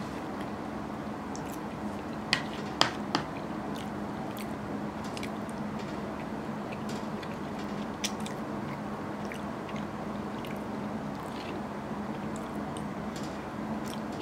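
Metal spoon clinking against a ceramic bowl of curry rice: three sharp clinks close together a few seconds in and another about eight seconds in, with faint eating and chewing sounds between, over a steady low hum.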